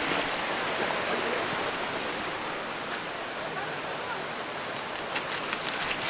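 Rushing creek water, a steady even hiss, with a few short clicks near the end.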